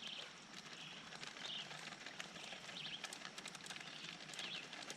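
Faint forest ambience with several short, high bird chirps, over scattered light ticks and rustles as flour is poured and handled in a bowl.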